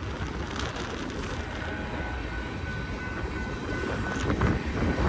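Freight train rolling past, a steady rumble of cars on the rails with a faint thin high tone in the middle, growing louder near the end.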